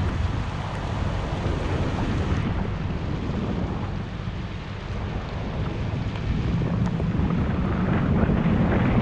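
Wind noise on the microphone of a Toyota 4Runner driving on a wet road, with a steady low rumble of engine and tyres underneath. It grows louder near the end.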